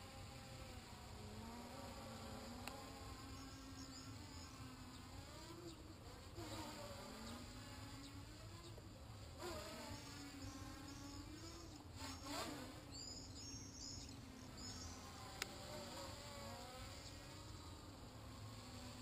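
Small quadcopter's motors and propellers buzzing faintly, the pitch wavering up and down as the throttle changes.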